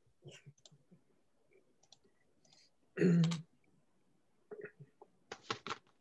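Scattered faint clicks and small handling noises picked up by the participants' microphones on a video call, with one short, louder vocal sound, like a throat clearing or a brief murmur, about three seconds in, and a few more short sounds near the end.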